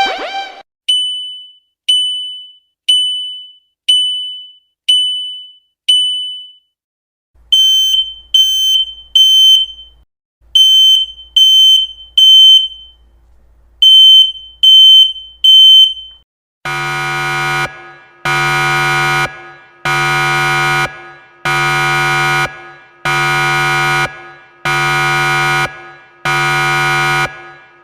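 Electronic warning alarm beeps in three patterns. First comes a single high beep about once a second. Then high beeps come in groups of three with a pause between groups, the temporal-three pattern of a smoke alarm. From about 17 s in, a harsh, low buzzer sounds in pulses of nearly a second, about one every 1.2 s.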